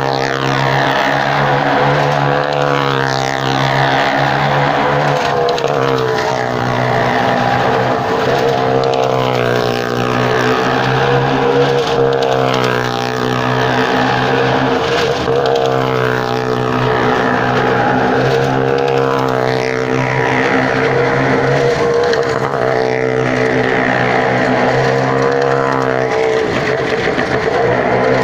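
Car and motorcycle engines running hard without a break as they ride the wall of a well-of-death cylinder, their note wavering up and down.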